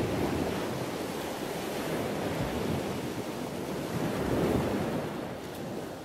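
Ocean surf sound effect laid onto the footage: a steady wash of waves on a shore. It swells at the start and again about four and a half seconds in.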